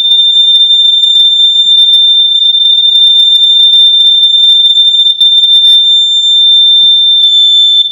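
Household smoke alarm sounding during a test: one loud, continuous high-pitched tone that cuts off right at the end.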